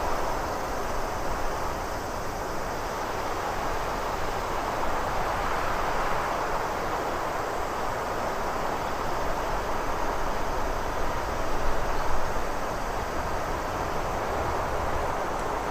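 Steady white-noise nature ambience: an even rushing hiss that swells and eases slowly.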